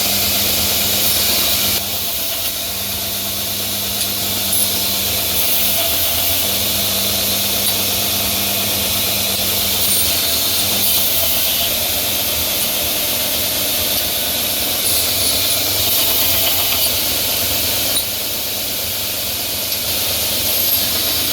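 Grinder running steadily with a continuous high hiss as steel pieces are ground clean of scale before forge welding.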